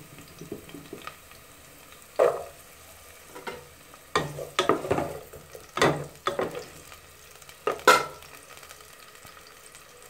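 Chopped onions sizzling in hot oil in an aluminium pot, with a wooden spoon scraping and knocking against the pot as they are stirred, in several separate strokes. The loudest stroke, about eight seconds in, leaves the pot ringing briefly.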